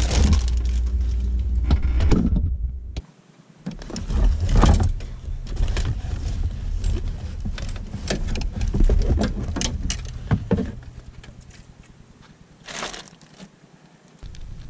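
Handling noises: a plastic bag rustling and things being knocked and set down in a car trunk, with a run of short clicks and rustles for several seconds and one more burst near the end. A steady low hum under the first three seconds, cut off suddenly.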